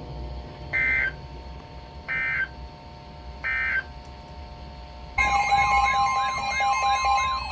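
Emergency Alert System digital data bursts: three short screeching bursts about 1.4 seconds apart, the end-of-message code that closes a weather radio warning. About five seconds in, a louder warbling siren-like alarm starts over a steady alert tone.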